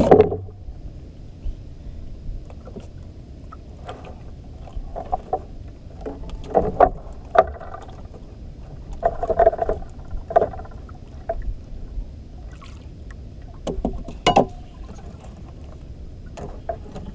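Small wooden outrigger boat (banka) on the sea: water slapping and sloshing against the hull over a steady low rumble, with scattered knocks and clatter on board.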